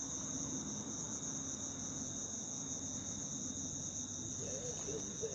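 Crickets trilling steadily, a continuous high-pitched chirring.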